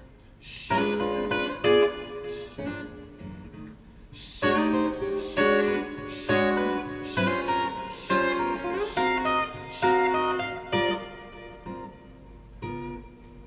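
Instrumental jazz passage led by plucked acoustic-sounding guitar, played back over hi-fi loudspeakers. The guitar runs in quick phrases of picked notes, thinning out for a moment near the end.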